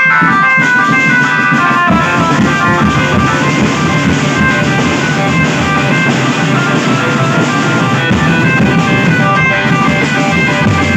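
Continuous music with guitar and a drum kit keeping a steady beat.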